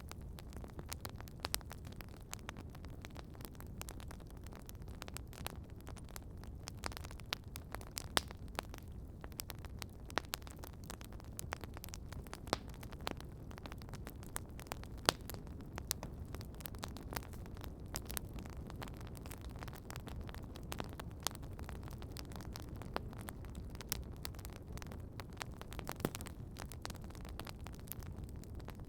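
Outdoor wood campfire burning steadily, with irregular sharp crackles and occasional louder pops over a low, even rush of flame.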